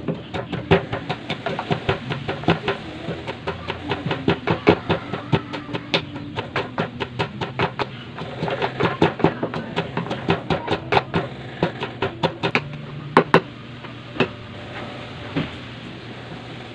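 A wooden pestle pounding chili peppers in a small wooden mortar: a fast run of sharp knocks, about three to four a second, that stops about thirteen seconds in, with a few last knocks after.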